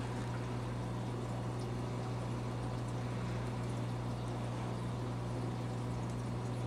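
Saltwater reef aquarium's pumps and water flow: a steady low electrical hum under an even wash of moving water.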